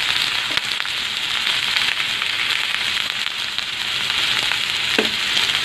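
Boiled elephant foot yam cubes and onion frying in hot oil in a kadai: a steady sizzle with a few faint crackles.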